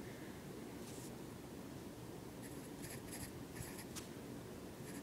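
Pencil drawing on paper: faint short scratching strokes, one about a second in and a quick run of them from about halfway to near the end.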